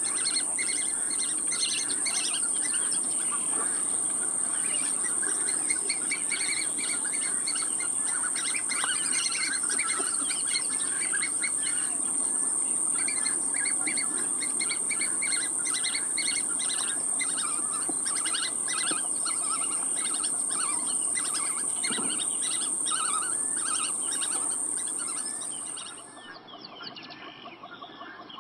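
Birds chirping over a steady high-pitched whine; the whine cuts off near the end and everything gets quieter.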